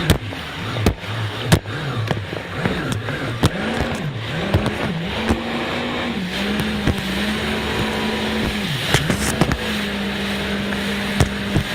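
Jet ski engine revving up and down about once a second as the throttle is worked on and off, then held at a steady, higher pitch from about halfway through. Sharp knocks are scattered throughout.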